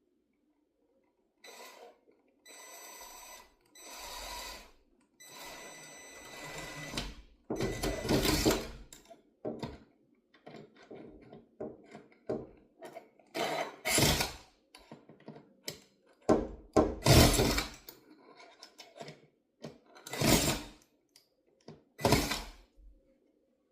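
A cordless drill runs in several short bursts with a high motor whine, driving screws. It is followed by about five loud knocks and thuds, with smaller clicks between them, as the bracket and blind are fastened and pushed into place.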